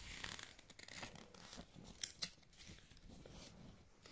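Faint rustling of a picture book's paper pages being handled and turned by hand, with a couple of sharper paper flicks about two seconds in.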